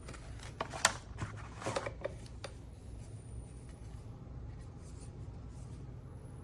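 A quick run of clicks and rustling handling noises in the first couple of seconds, over a low steady hum.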